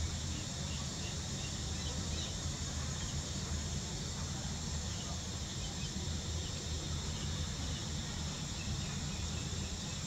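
Steady outdoor background: a continuous high-pitched insect chorus, crickets or cicadas, over a low steady rumble, with a few faint short chirps.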